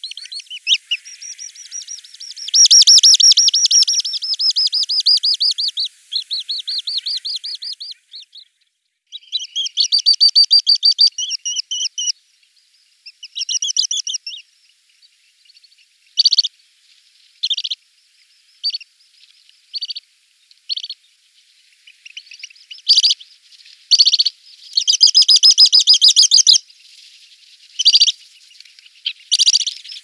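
Little stint calling: rapid high-pitched trilled series, then short sharp single notes about once a second, and another trilled series near the end.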